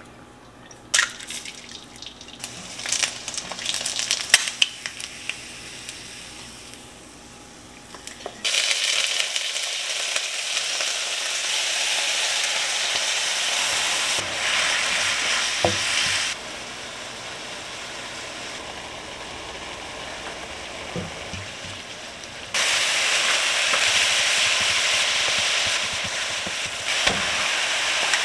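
Food stir-frying in a hot pan: a steady sizzle that starts suddenly about a third of the way in, drops lower for a while, then comes back loud near the end. Scattered light knocks and clicks come before it.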